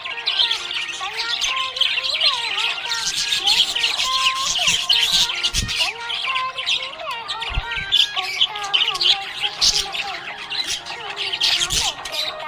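A flock of budgerigars chirping and warbling continuously, a dense stream of rapid chirps with occasional squawks, over background music.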